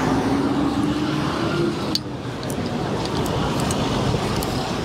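Busy street traffic: a steady rumble of running engines, one of them rising slightly in pitch in the first second and a half, with a few sharp clicks.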